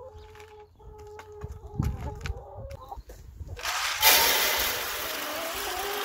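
Hens feeding: sharp pecking taps on feed in a plastic bucket, with a low, drawn-out hen call. About three and a half seconds in, a loud steady rushing pour starts as a bucket is tipped out into a feeder, while the hens keep calling over it.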